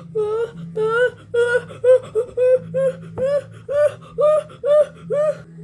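A cartoon character's voice making a run of short 'ah… ah…' sounds that climb in pitch and come faster, the build-up to a sneeze, over a steady low hum.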